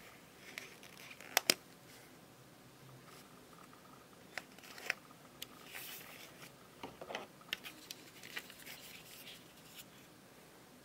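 Hands handling headphones and their packaging: two sharp clicks close together about a second and a half in, then scattered lighter clicks, taps and rustling.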